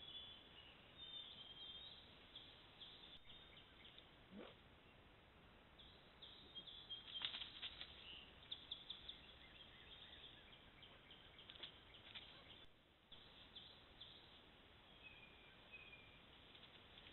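Faint woodland ambience through a trail camera's microphone: scattered bird chirps, with a cluster of soft clicks and rustles about seven to nine seconds in.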